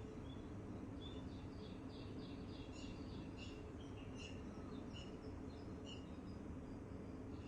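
Small songbirds chirping: short, high chirps come in a quick run of several per second in the middle, then scattered single chirps, over a steady low background hum.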